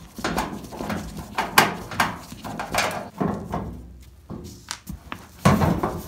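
A screwdriver backing a screw out of the sheet-metal lower front panel of a Whirlpool dryer: an irregular run of scrapes and clicks, with a louder cluster of knocks near the end as the panel is taken hold of.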